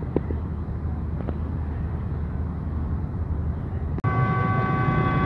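Steady low rumble of engines and outdoor noise; about four seconds in, after a cut, a horn starts sounding one held chord of several steady tones over a louder low rumble.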